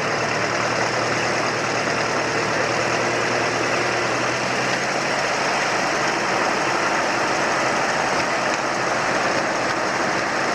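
Ferguson TEA20 tractor engines of a tandem rig running steadily; the TEA20 has a four-cylinder petrol engine.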